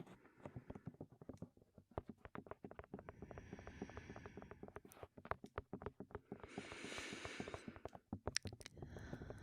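Rapid fingertip tapping on a microphone, many taps a second, broken twice by heavy breaths into the mic: a softer one a few seconds in and a louder one about two-thirds of the way through, after which the tapping resumes.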